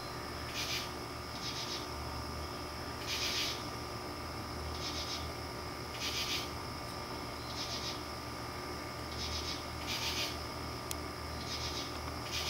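Insects calling: short raspy high-pitched bursts repeating every one to two seconds, some louder than others, over a faint steady high tone.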